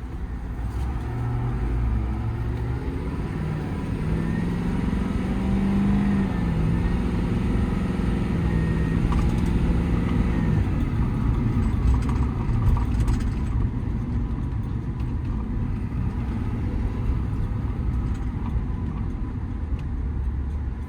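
Ford 6.7 L Power Stroke V8 turbo-diesel of a heavy pickup driving at low speed. The engine note rises about four seconds in as the truck accelerates, holds for a few seconds, then eases off around halfway, over a steady low rumble of engine and road noise.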